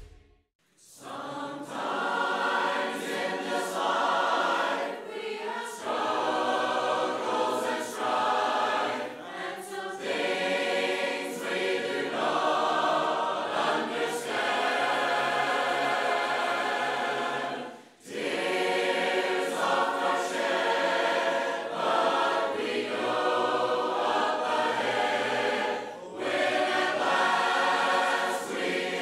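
A church congregation of men and women singing a hymn together a cappella. The singing comes in about a second in and goes in phrases, with a short break about two-thirds of the way through.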